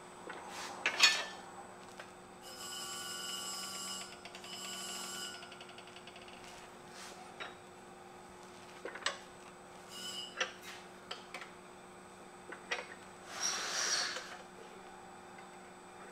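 Scattered metal clinks and knocks of tongs and a steel knife blade being worked in a leg vise to straighten it, the sharpest about a second in. A telephone rings twice in the background in the first third, and a short scraping rush comes near the end.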